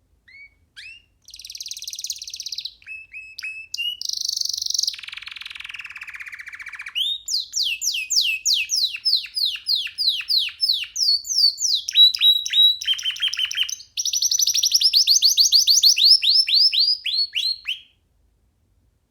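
Domestic canary singing a long song of trills and rolls: fast series of repeated sweeping notes that change pitch from phrase to phrase, ending about a second before the close.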